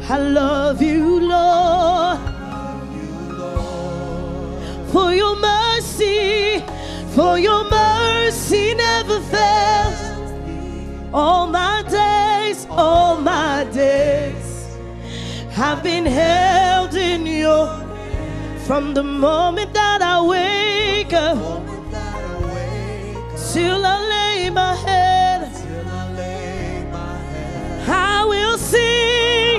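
Gospel worship song: a singer with a wide vibrato, gliding between notes over band accompaniment with sustained bass notes.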